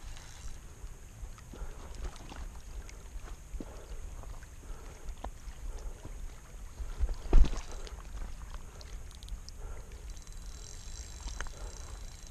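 Wind rumbling on the microphone, with scattered light clicks and scrapes and one sharp knock about seven seconds in.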